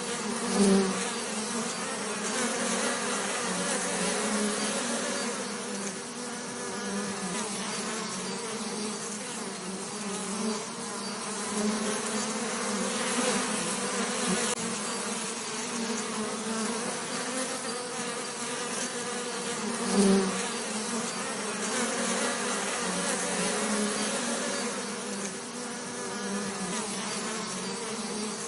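Bees buzzing in a steady, continuous drone, briefly swelling louder about a second in and again about twenty seconds in.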